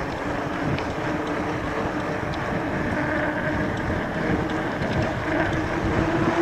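Wind rushing over the microphone and fat-tyre road noise from a moving electric bike, with a faint steady hum that grows a little stronger partway through.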